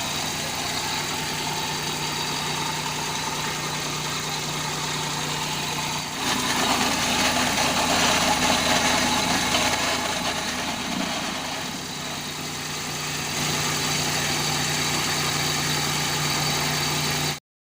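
Car engine idling steadily with a low hum. About six seconds in it grows louder and fuller for several seconds, then settles back. The sound cuts off abruptly near the end.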